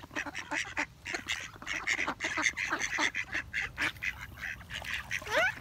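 Flock of mallard ducks calling in a rapid, continuous stream of short quacks and chatter, with a brief rising squeal near the end.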